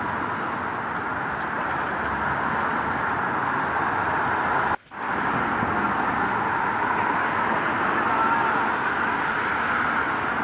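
Steady rain mixed with the wash of road traffic on wet streets. The sound cuts out for a moment about halfway through, then resumes.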